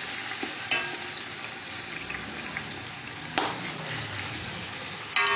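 Meat sizzling in hot ghee with golden-fried onions in a cooking pot, a steady frying hiss, with three sharp knocks spread through it.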